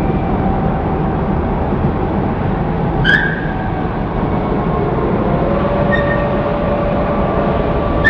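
Port gantry crane machinery running with a steady heavy rumble as it hoists a sling of newsprint reels. A motor whine shifts in pitch about five seconds in, and there is a short high squeal about three seconds in.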